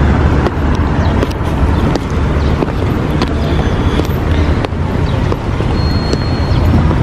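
Steady low rumble of a vehicle in motion, with a few light knocks scattered through it.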